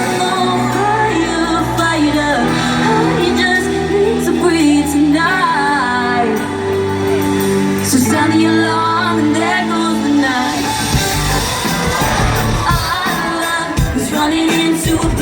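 Live pop band music with singing: a sung melody over sustained band chords.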